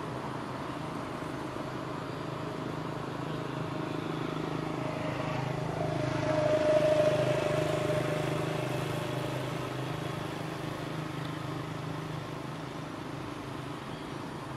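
A motor vehicle passing: its engine noise swells to a peak about halfway through and then fades, over a steady low background hum.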